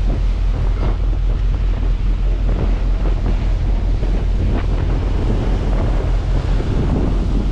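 Strong wind buffeting the microphone over rough sea, with water churning and splashing around a pair of trawl doors as they are hauled up out of the waves. The noise is loud and steady, with a few sharper splashes.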